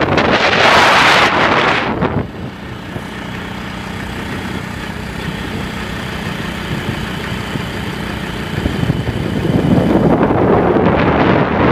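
Wind rushing and buffeting on the microphone, easing about two seconds in to leave a steady vehicle engine hum, then building up again near the end.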